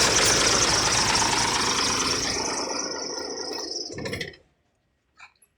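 Isuzu 6HK1 inline-six diesel engine running, fading over a couple of seconds and then stopping abruptly about four seconds in, followed by a few faint clicks.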